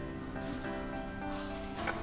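Background music with plucked-string notes, playing at a moderate level.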